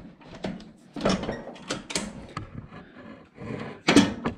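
Steel deck height lift lever on a Craftsman lawn tractor being moved along its notched slot, clunking and rattling in a series of sharp metal knocks, loudest near the end.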